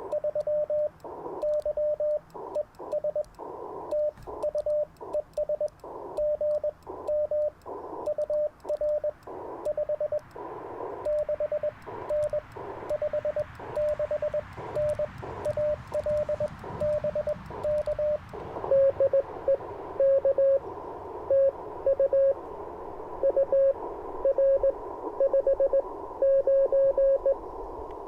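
Morse code (CW) tones from an Icom IC-705 ham radio transceiver on the 40-meter band, keyed dots and dashes over a steady hiss of band noise. About 18 seconds in, a louder Morse tone at a slightly lower pitch takes over.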